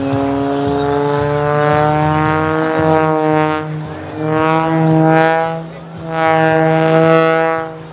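Extra 330SC aerobatic plane's engine and propeller giving a strong droning note that rises in pitch over the first few seconds, then swells and fades twice more as the power changes through the manoeuvres.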